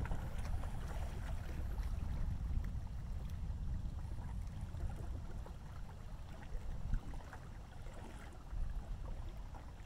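Distant thunder rolling: a low rumble that slowly fades over several seconds, with faint ticks above it.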